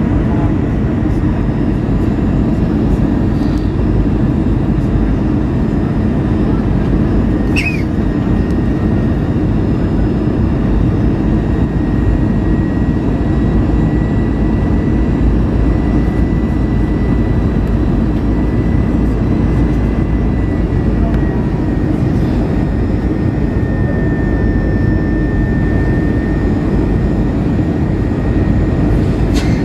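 Steady cabin noise inside an Airbus A320 descending on approach: the constant roar of the jet engines and airflow, with a thin, steady high whine over it. A sharp click about eight seconds in and another near the end.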